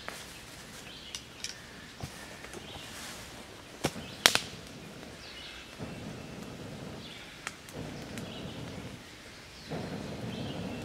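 Split cedar sticks clicking and cracking as they are handled on a small kindling fire, the sharpest crack about four seconds in. From about six seconds in come three long breaths blown into the base of the fire to get the flames going.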